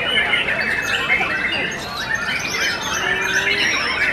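White-rumped shamas (murai batu) singing, several birds at once: a dense, unbroken tangle of rapid whistled phrases and trills.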